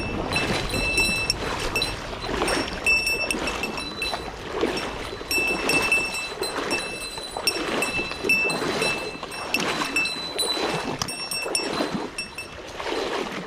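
Stream water splashing and sloshing in uneven surges about once a second, with a faint thin high tone coming and going above it.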